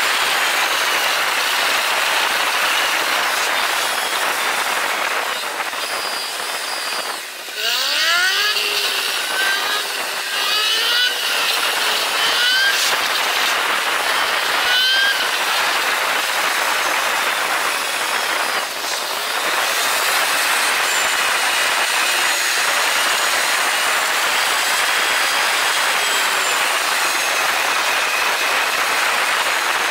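Steady wind and road noise rushing over the microphone of a Suzuki SV400S motorcycle under way. Its 400 cc V-twin engine's note rises in quick sweeps as it accelerates, first about a third of the way in and a few times shortly after.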